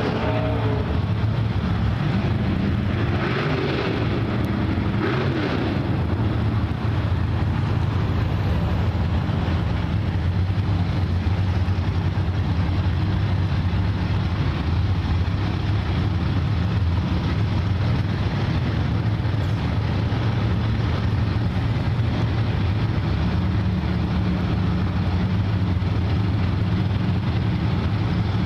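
Drag-racing Chevrolet Nova V8s idling loudly and steadily at the starting line, with a couple of revs about three to five seconds in.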